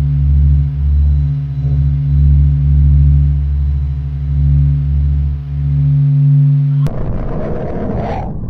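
Sonified space recording: a deep drone of steady low tones that swells and fades about once a second. About seven seconds in it cuts abruptly to a rough, noisy roar.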